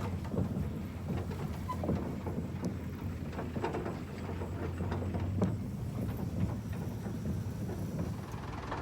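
A towing vehicle's engine running steadily while a hay trailer rattles and knocks as it is pulled across a field.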